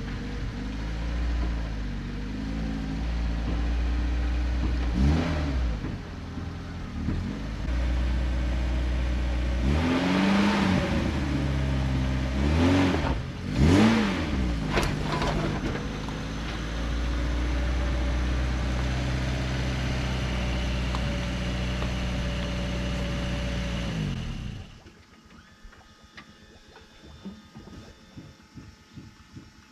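Lada Niva's engine running and revving several times while reversing a boat trailer down a launch ramp, then stopping suddenly near the end.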